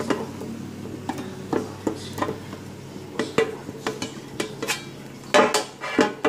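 A knife scraping and knocking against the inside of a nonstick loaf pan as butter is smeared over it to grease it, in irregular strokes, with two louder knocks near the end.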